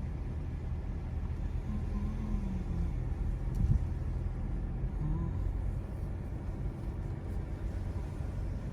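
Steady low rumble of a vehicle in motion, with one sharp knock a little past the middle.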